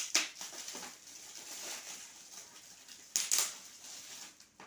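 Gift packaging being handled and unwrapped by hand: rustling and crinkling, with two louder crackles, one just after the start and one about three seconds in.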